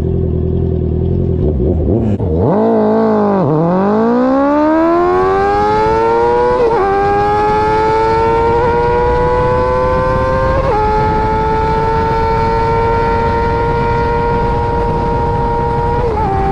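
Honda CBR650R inline-four motorcycle with an aftermarket KO Lightning exhaust under full throttle. It starts from a low rumble, gives a quick rev about two and a half seconds in, then pulls hard with its pitch climbing steeply. Brief breaks in the note follow at about 7, 11 and 16 seconds, and between them it holds high and steady.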